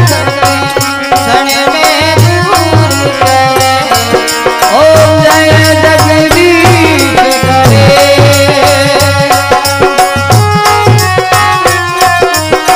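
Instrumental passage of a Rajasthani-style devotional bhajan: a sustained melody line over a regular hand-drum beat, with rattling hand percussion clicking throughout.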